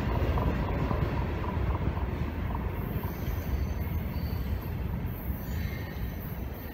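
Train rumbling away after clearing the crossing, its low rumble slowly fading, with faint high wheel squeals in the second half.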